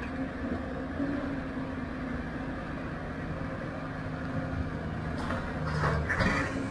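CAT 320 hydraulic excavator's diesel engine running steadily as the loaded arm lifts and swings. About five seconds in, soil pours from the bucket into the steel dump-truck bed with a rushing, rattling sound.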